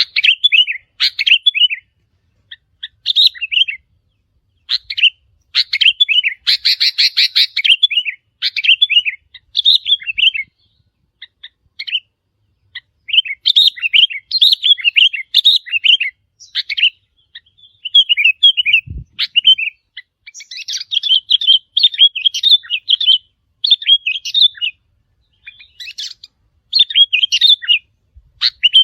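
Sooty-headed bulbuls calling: repeated short whistled phrases with brief gaps, and a denser, harsher chatter a few seconds in. There is a single low thump about two-thirds of the way through.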